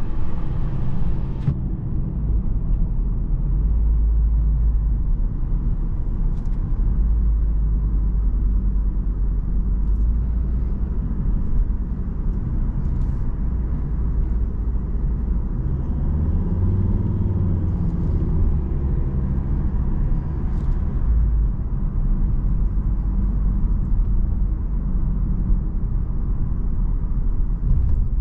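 Interior cabin noise of a 2010 Volvo S60 on the move: a steady low rumble of engine and road noise. The engine note rises briefly around the middle.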